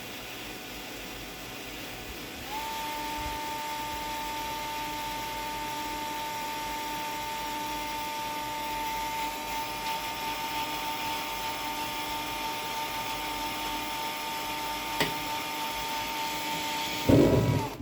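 Electric drill with a cobalt drill bit, starting up about two and a half seconds in and running with a steady whine as it drills. There is a single click near the end, then a loud low thump as the drill stops.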